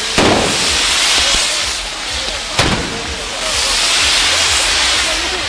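Ground fireworks, spinning wheels and fountains, spraying sparks with a loud, steady hiss. Two sharp bangs cut through, one just after the start and one about two and a half seconds in.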